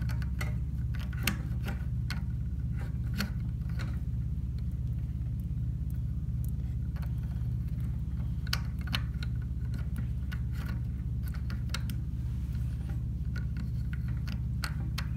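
Scattered light clicks and taps of plastic plumbing parts being handled as a toilet fill valve's supply-line nut is fitted by hand, over a steady low hum.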